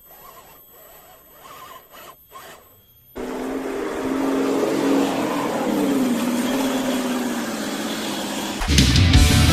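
A 1/10 scale RC pickup truck's motor and drivetrain running, with a whine that slides up and down in pitch over a steady hiss, starting abruptly about three seconds in after a faint stretch. Loud rock music comes in near the end.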